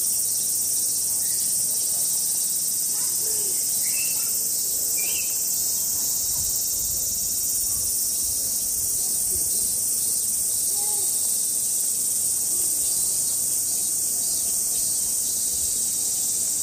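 Chorus of cicadas: a steady, high-pitched drone that holds at one level throughout.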